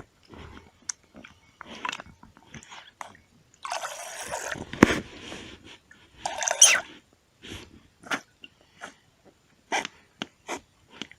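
Hands rubbing shampoo into a bath toy in a small tub of water: irregular wet squishing and rustling with small clicks and knocks, a little louder about four and six and a half seconds in.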